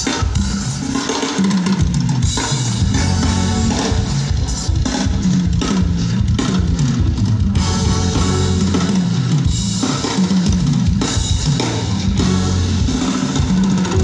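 Live band playing at a sound check, the drum kit to the fore with kick and snare over a low bass line, heard through the stage sound system.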